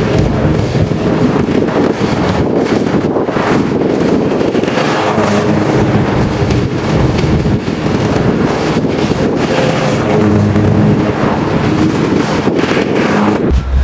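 Lawn mower engine running steadily while cutting grass, with wind buffeting the microphone.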